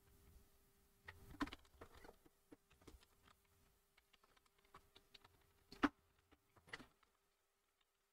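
Near silence: a few faint scattered clicks, the loudest about six seconds in, over a faint steady hum that stops near the end.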